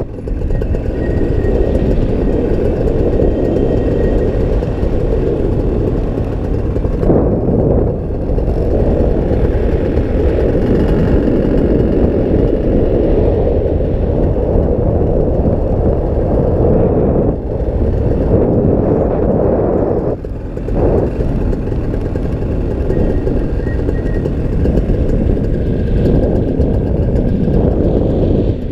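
Paramotor engine and propeller running steadily in flight, mixed with a dense rush of wind, dipping briefly twice.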